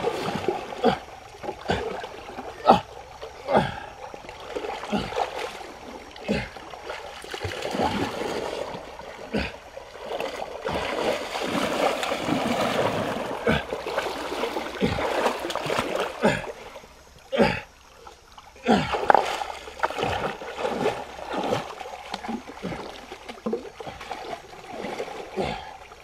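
Splashing as a person wades and works with his hands in a shallow, flowing stream: irregular splashes over the steady rush of the water, with a brief quieter lull about seventeen seconds in.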